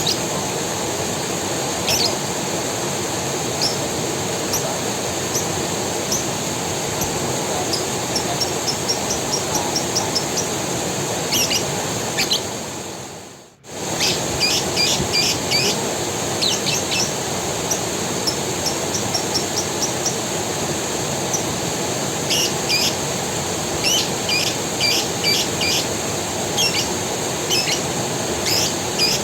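Forest creek running steadily, with small birds chirping over it in short quick runs of notes, more often in the second half. The whole sound fades down briefly about thirteen seconds in and then comes straight back.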